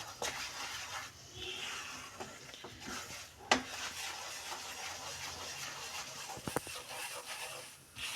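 Gram flour being stirred and roasted in hot ghee in a frying pan: a steady soft scraping with a faint sizzle. A sharp tap of the utensil on the pan comes about three and a half seconds in, and a couple of lighter knocks follow later.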